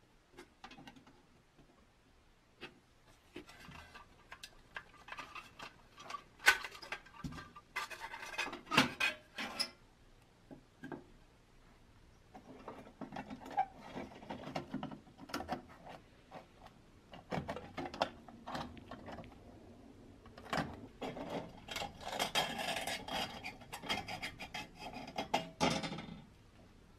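A screwdriver and pliers prying and bending the metal tabs of a rusty pressed-steel toy dump truck: metal scraping and rasping with sharp clicks and taps. The sound comes in spells, the densest scraping over the last six seconds or so.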